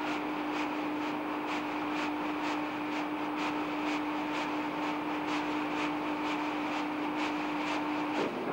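Textile mill machinery running: a steady motor hum under a regular mechanical clatter of about two beats a second, typical of weaving looms at work. It stops abruptly near the end.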